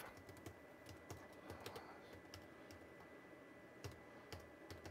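Faint, irregular keystrokes on a computer keyboard as an INITIALIZE command is typed, over a faint steady high-pitched whine.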